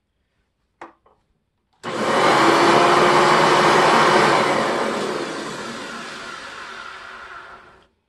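A click, then about two seconds in a vacuum cleaner's motor starts suddenly at full speed, runs for a couple of seconds and winds down slowly to a stop. This is its first run with one of its two bearings freshly replaced: a little better, but not that great.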